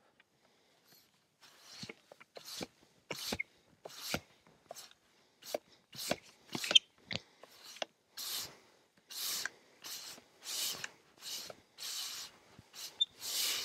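Long-handled broom sweeping sawdust off a freshly sawn wood slab: repeated scratchy brush strokes starting about a second and a half in, short and uneven at first, then longer and steady at about three strokes every two seconds.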